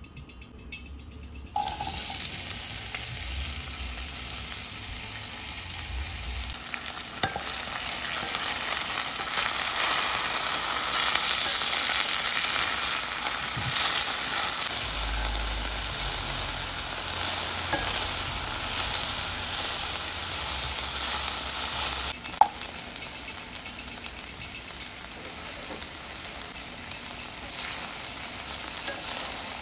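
Sliced onions sizzling in hot olive oil in a stainless steel pan while being stirred with a wooden spatula. The sizzle starts abruptly about a second and a half in and runs steadily on. There is one sharp knock about 22 seconds in.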